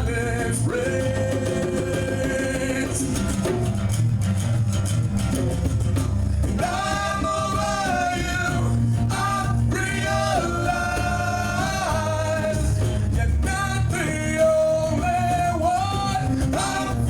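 Rock band playing live, with a held, bending vocal melody over guitar, bass and drums.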